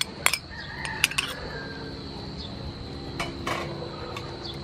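Oil sizzling steadily around river prawns frying in a pan, with a few sharp clinks of a spoon against a small ceramic bowl as hoisin sauce is scraped into the pan.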